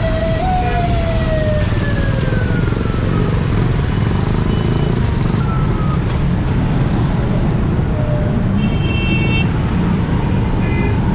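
Congested road traffic at a crawl: motorcycle and auto-rickshaw engines running in a steady low haze. Over the first three seconds a pitched tone slides slowly down, like a siren winding down. A short horn beep comes about nine seconds in, and a brief one shortly before the end.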